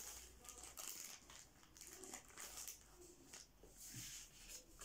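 Faint rustling and crinkling of album pages being handled and touched, in short irregular scrapes.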